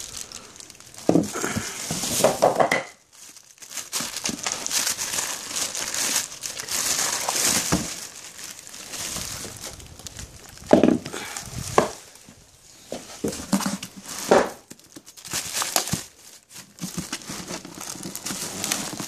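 Clear plastic bags crinkling and rustling as bagged weight plates are handled, in irregular bursts with short pauses, plus a few sharp knocks in the second half.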